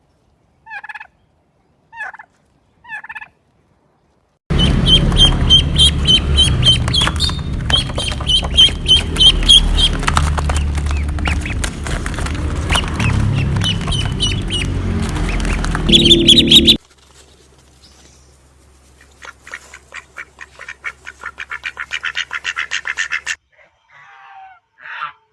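A flock of domestic fowl calling, with many repeated, overlapping calls over a low rumble through the middle, after a few short single calls. Near the end comes a rapid clicking that grows louder, then a few more short calls.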